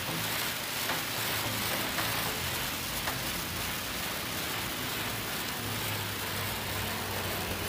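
Pressure washer jet spraying steadily onto wet concrete, hissing and spattering as it strips thick moss from the surface, with a low hum underneath that grows stronger near the end.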